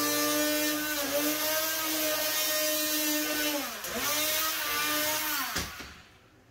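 Power tool's electric motor running at high speed, its pitch sagging several times as it is pushed into the work and picking up again, then winding down near the end.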